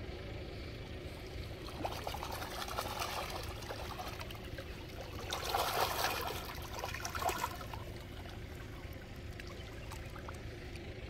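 Koi splashing and slurping at the water's surface as a crowd of them jostles against the bank, the splashing swelling to its loudest about halfway through and then dying down. A steady low rumble runs underneath.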